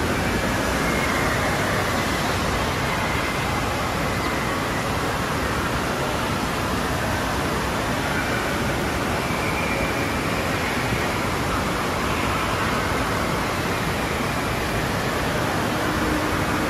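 Steady wash of rushing and splashing water in an indoor water park, with a faint din of voices in it. A low steady hum joins near the end.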